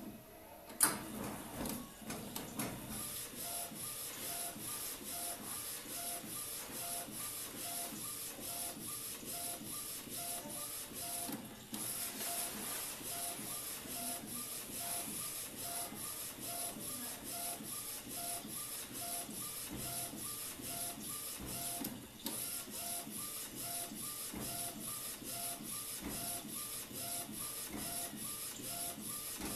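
Desktop A4 UV flatbed printer printing: a sharp click about a second in, then the print-head carriage shuttles back and forth in an even rhythm, its motor whirring with a short tone on each pass. The rhythm breaks briefly twice.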